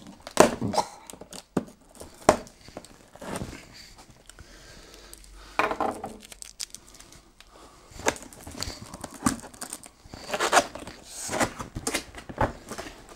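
Cardboard box being opened by hand: flaps pulled and torn open, with tearing, scraping and crinkling in irregular bursts.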